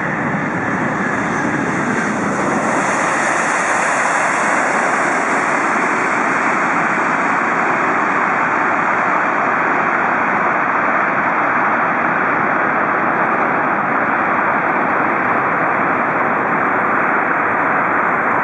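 Jet noise from a Boeing 747-8 Intercontinental's four GEnx-2B engines as the airliner comes in to land: a steady rushing roar that swells over the first few seconds and then holds level.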